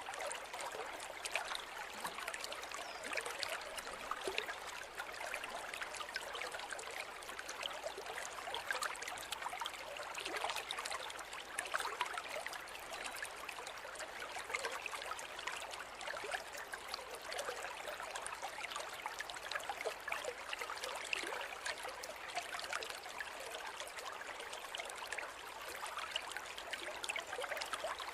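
Small river flowing steadily over stones, a constant babble of little splashes and trickles.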